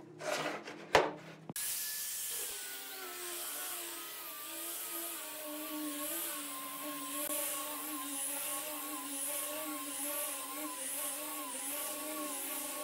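An angle grinder with a sanding disc running against a wooden tabletop: a motor whine that drops in pitch as the pad bears on the wood and then wavers with the hand pressure, over a steady hiss of abrasive on wood. A single sharp knock comes about a second in, before the grinder starts.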